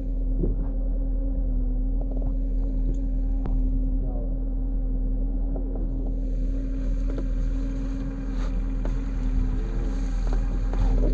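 Small boat's outboard motor idling with a steady low hum and rumble.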